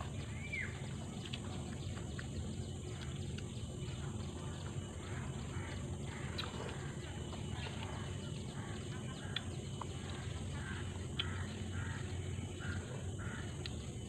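Outdoor ambience with a steady low rumble and a single short bird chirp about half a second in, while someone eats meatball soup: a few light clicks of a spoon against a bowl, with faint eating noises.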